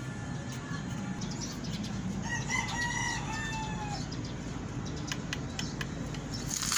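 A rooster crowing once, a call of about two seconds that falls in pitch at the end, over a steady low hum and scattered clicks.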